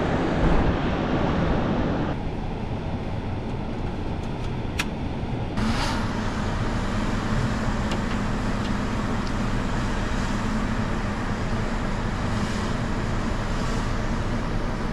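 Wind buffeting the microphone, joined about five seconds in by the steady hum of a hovering quadcopter drone's propellers.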